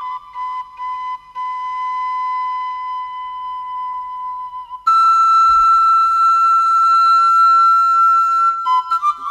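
Background music: a solo flute melody of long held notes, leaping about five seconds in to a higher note held for nearly four seconds, then a run of quick short notes near the end.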